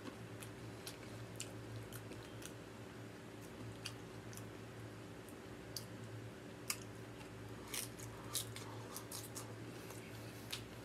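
Close-miked chewing of tortilla-chip nachos: scattered crisp crunches and mouth clicks at uneven intervals, a few louder ones in the second half, over a steady low hum.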